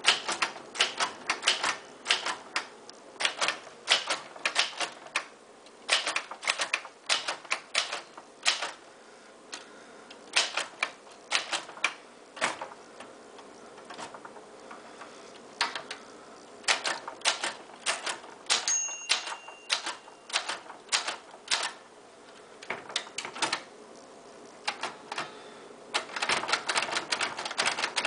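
Vintage Royal manual typewriter being typed on: sharp key strikes in quick irregular runs, broken by short pauses and a gap of about two seconds near the middle, with a brief ringing tone a little past the middle.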